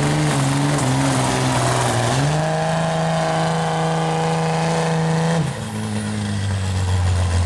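Turbocharged Cummins diesel of a Dodge Ram pickup pulling a sled hard: the engine note wavers, climbs about two seconds in and holds steady and high. A little past halfway it drops off suddenly as the pull ends, with a high turbo whistle falling away, then runs low and steady.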